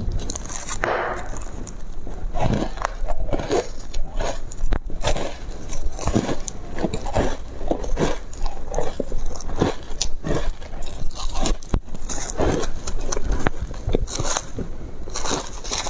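Foam ice being bitten and chewed close to the microphone: a continuous, irregular run of crisp crunches and crackles.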